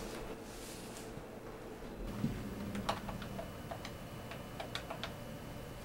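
Keys on a cordless phone handset being pressed to dial: a run of light, irregular clicks beginning a few seconds in.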